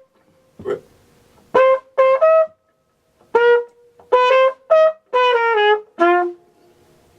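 Flugelhorn playing a phrase of short, tongued notes with rests between them, a falling run near the end that drops to a low final note.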